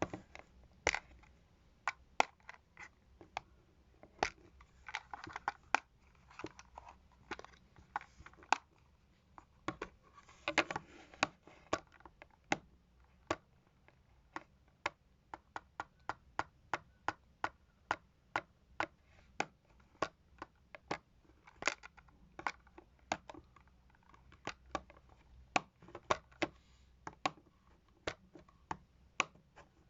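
Lids of cosmetics containers being opened and snapped shut over and over: a string of sharp clicks, about one or two a second, with a few softer scraping sounds in the first half.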